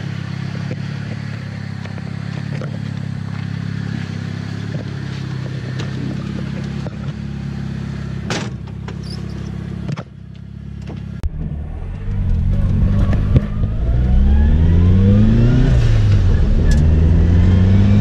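Turbocharged Toyota AE86 4A-GE four-cylinder engine idling steadily. After a break about ten seconds in, the car pulls away, revs climbing, falling at a gear change, then climbing again.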